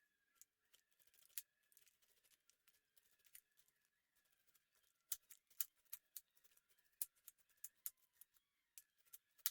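Faint, irregular sharp clicks and snips, sparse at first and coming about twice a second from about halfway in, over a faint steady high hum.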